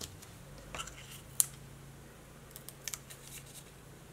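A few short, sharp clicks and taps of stiff cardstock being handled and pressed into place, the loudest about a second and a half in, over a steady low hum.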